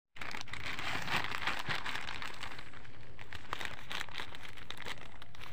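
Thin plastic courier mailer crinkling and rustling with many quick crackles as it is cut open with scissors and handled.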